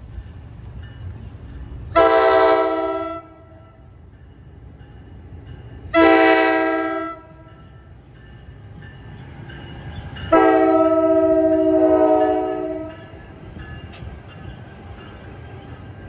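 NJ Transit ALP-45DP locomotive sounding its multi-note horn three times as it approaches: two blasts of about a second each, then a longer one of over two seconds. A steady low rumble from the train runs underneath.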